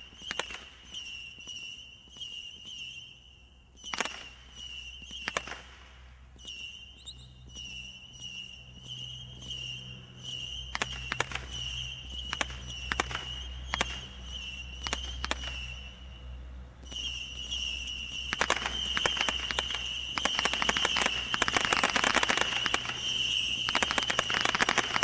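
A 200-shot Xccelerator Category 2 combination roman candle firing. Single shots come a few seconds apart at first, then faster from about ten seconds in, building to rapid fire over the last seven seconds. A steady high tone in short pulses runs behind the shots.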